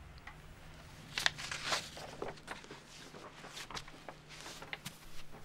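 Soft, irregular rustles and light footsteps of people moving about, over a faint steady low hum.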